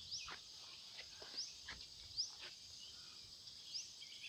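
Faint steady high-pitched insect drone, with short rising chirps and a few brief calls scattered through it.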